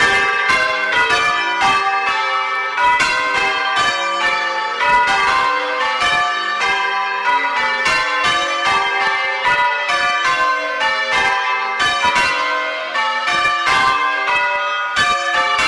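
A ring of six church bells, a clonky, old-fashioned 11 cwt six in G, being rung full circle. The bells strike one after another in a quick, steady rhythm, and their tones overlap and blend.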